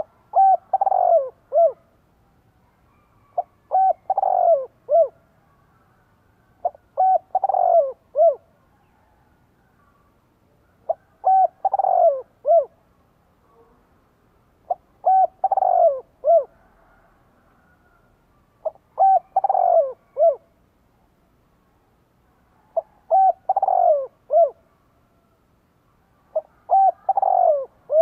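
Spotted dove (cu gáy) cooing in its repeated four-note phrase, two short coos, a longer falling coo and a short closing coo, eight times, about once every four seconds. It is a caged decoy dove's calling song, used to provoke wild doves into answering.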